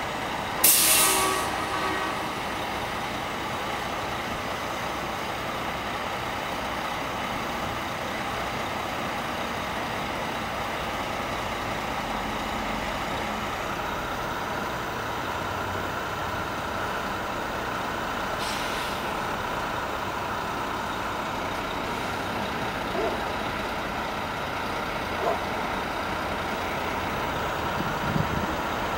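Mack E7 six-cylinder diesel of a parked RD690S oil tank truck running steadily. A sharp burst of air hissing from the truck's air system comes about a second in, and a fainter hiss later on.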